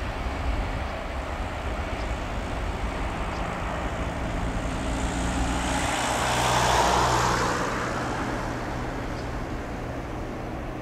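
The four CFM56 jet engines of an Airbus A340-300 running at takeoff power as the airliner rolls away down the runway. A broad rushing jet noise swells to its loudest about six to seven seconds in, with a falling sweep in its higher part, then eases off.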